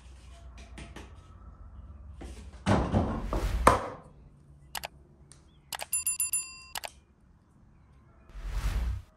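About a second of clattering and knocking as bowls and utensils are handled on a wooden table. Then a click and a short bell chime from a subscribe-button animation, and near the end the short crack of an egg being broken open.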